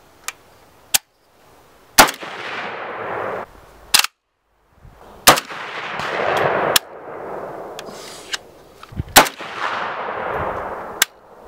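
Krebs Custom AK103K-S rifle in 7.62x39 firing slow, aimed single shots: three loud reports a few seconds apart, each followed by a rolling echo tail.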